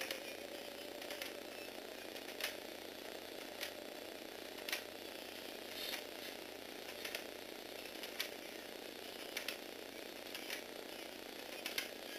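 Motor-driven Lego Technic model piston engine running: the small electric motor and plastic gears whir steadily, with a sharp click from the mechanism about once a second.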